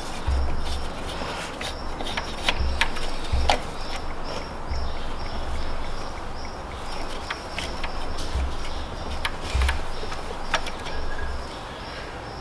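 Scattered metallic clicks and light knocks of gloved hands working a throttle body free from a V8's intake, with dull low thumps now and then, over a steady hiss.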